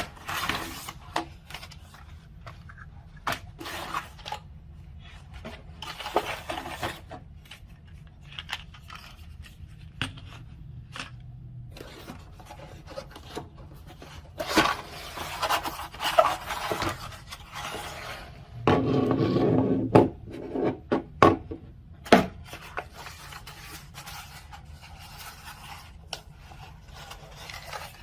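Cardboard product packaging being handled and opened: rubbing, scraping and sliding of boxes, with scattered clicks and light taps, and a longer stretch of scraping past the middle.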